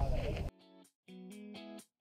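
Wind rumbling on the microphone, cut off abruptly about half a second in by background music: a few plucked guitar notes with short silences between them.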